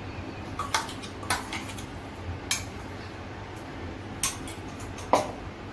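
A spoon clinking and tapping against a bowl, with about five sharp clinks spread over a few seconds, as ground spice paste is scraped off it into marinating mutton.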